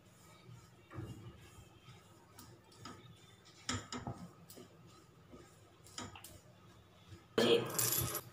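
A silicone spatula stirring and scraping dry semolina in a non-stick kadhai, dry-roasting it for upma: a few soft, separate scrapes, then a louder stretch of scraping and clatter near the end.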